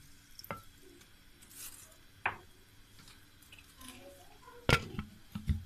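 A few scattered light knocks and clinks from a glass tumbler and a mixer-grinder jar being handled and set down, the loudest near the end; the grinder motor is not running.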